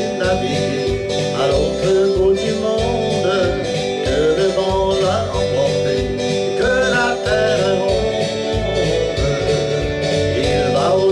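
A man singing a French-language song over a country-style backing track with guitar.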